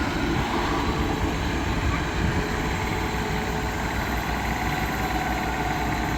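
John Deere 350G excavator's diesel engine running steadily as the machine is driven off its delivery trailer.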